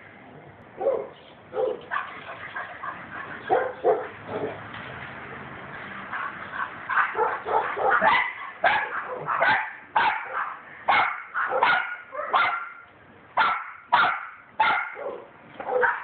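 Dogs barking, with scattered barks at first and then a fast run of sharp barks, about two a second, through the second half.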